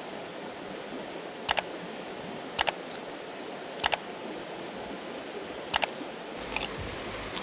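Steady rush of a shallow river flowing over rocks, broken four times by sharp double clicks spaced a second or two apart.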